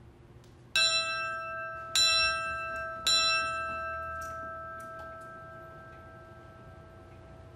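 A small brass wall-mounted bell, rung by pulling its chain, is struck three times about a second apart. Each strike rings on in clear steady tones that fade away slowly.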